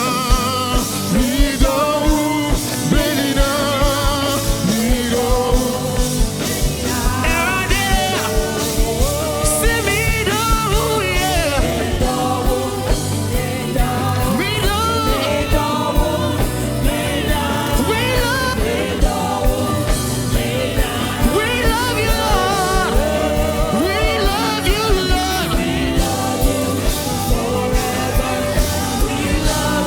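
Live gospel band music: a singer's wavering, ornamented vocal lines over a steady drum beat and bass.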